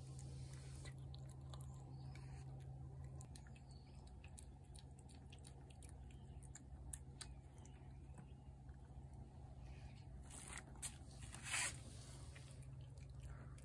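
A cat eating wet food from a plate: quiet, quick chewing clicks over a steady low hum, with a brief louder noise a little over eleven seconds in.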